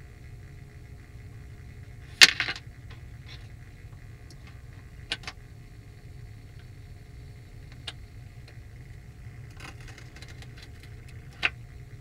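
Bagless vacuum cleaner running with a steady low hum while paper scraps swirl in its clear dust bin, clicking and rattling against the plastic. The loudest rattle comes about two seconds in, single clicks follow later, and there is a quick flurry of small ticks near the end.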